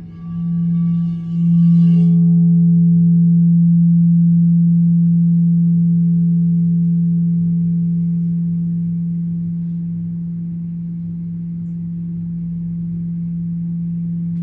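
A deep, sustained ringing tone with a few fainter higher overtones. It pulses about once a second at first, then holds steady and slowly fades.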